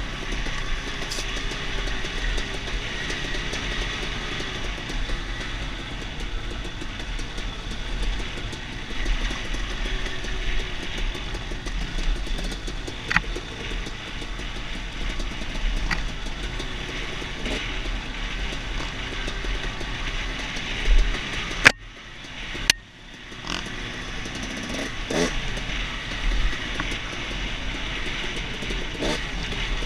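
Dirt bike engine running on a rough, rocky downhill trail, with scattered sharp knocks and clatter from the bike over rocks and ruts. About 22 seconds in, a loud hit is followed by a brief dip in the sound.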